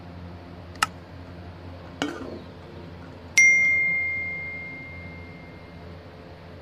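Two mouse-click sounds, then a single bright bell ding that rings out and fades over about two seconds, as in a subscribe-button notification effect, over a low steady hum.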